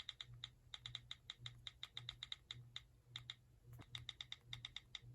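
Faint, quick runs of short clicks, several a second with brief gaps, typical of an iPhone's on-screen keyboard click sound as keys are tapped.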